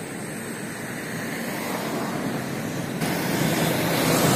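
Road traffic noise, growing louder about three seconds in as a light truck passes close by.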